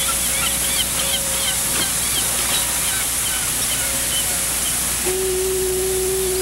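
Many quick, high bird chirps over a steady rushing hiss of wind or water, the chirps thinning out after about four seconds. A steady humming tone comes in about five seconds in and holds.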